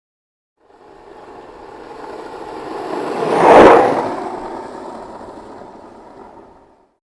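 A vehicle passing by: a rushing sound that swells to a sharp peak about three and a half seconds in, then fades away.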